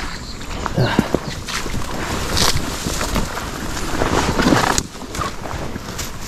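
Footsteps of someone in chest waders walking through tall wet grass, stems swishing against the waders and the carried gear, with uneven steps and knocks.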